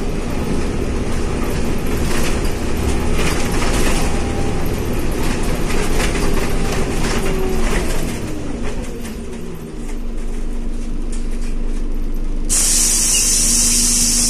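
Interior of a Scania OmniCity city bus: drivetrain and road rumble with rattling fittings while driving, the engine note falling as the bus slows to a stop. About twelve seconds in, a loud hiss of compressed air starts suddenly over a steady hum.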